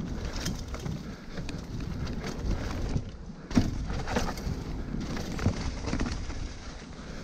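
Mountain bike riding down a dirt trail strewn with dry leaves: tyres rolling and the bike rattling over bumps, with wind rumbling on the camera's microphone. After a brief lull about three seconds in comes a sharp thump.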